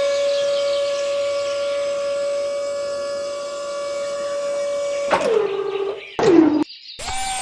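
Small electric motor whining at a steady pitch, then slowing with a falling pitch about five seconds in and cutting out, followed by short bursts where it is switched on and winds down again.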